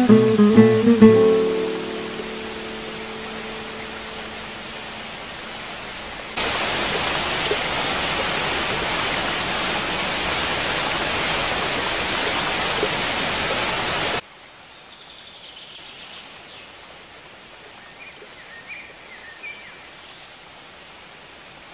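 Acoustic guitar music fades out, leaving a quieter steady hiss. About six seconds in, a loud steady rush of falling water from a tabletop zen waterfall fountain starts abruptly, then cuts off suddenly about eight seconds later. What remains is a quiet background with a few faint high chirps.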